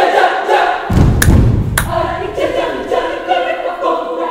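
Children's choir singing a Balinese folk song a cappella, holding chords in several parts. About a second in, a low thud and two sharp smacks about half a second apart cut through before the voices carry on.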